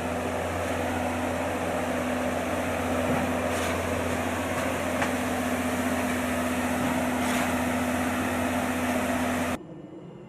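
Concrete pump truck's diesel engine running steadily with a constant hum, cutting off abruptly near the end.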